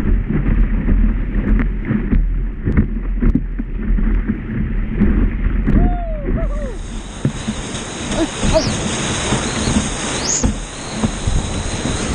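Big whitewater rapids rushing and crashing over and around a kayak's bow, with splashes and gurgles. The rush is muffled for the first half, then opens up into a loud, full hiss about six and a half seconds in.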